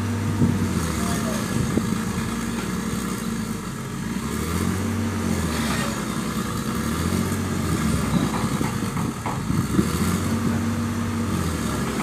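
Diesel engine of a small crawler excavator running hard under load while trying to climb a steep dirt slope. Its note sags and picks up again several times as it strains, with a few sharp knocks in between.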